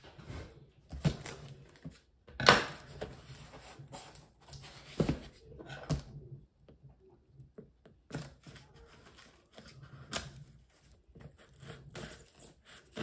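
Cardboard shipping box being handled on a desk: scattered knocks and scrapes, the loudest about two and a half seconds in, and the packing tape being slit and torn with a paring knife near the end.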